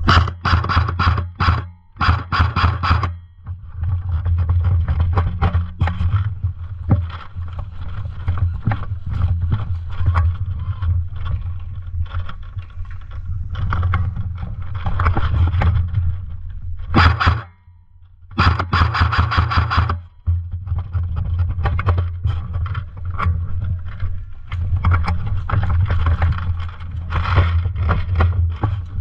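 Airsoft guns firing, in rapid bursts of sharp cracks with single shots between, over a steady low rumble. The densest bursts come just after the start and about two-thirds of the way through.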